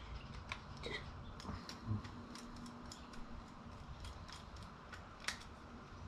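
Faint, irregular small metallic clicks, a few louder, of a flathead screwdriver turning out the screw in a Dinse welding cable connector.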